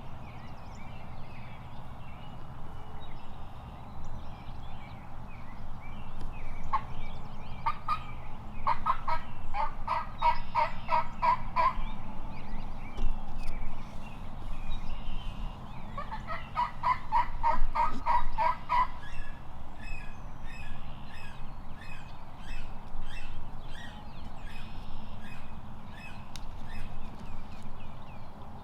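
Eastern wild turkey gobbling: two loud, rapid rattling gobbles, about eight seconds in and again about sixteen seconds in, with fainter short bird calls between and after.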